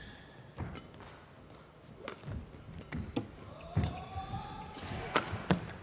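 Badminton rally: rackets strike the shuttlecock with a string of sharp, irregular cracks, mixed with footfalls on the court. Around the middle there is a squeak of court shoes sliding.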